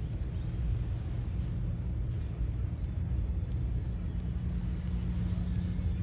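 Steady low outdoor rumble with a faint steady hum underneath.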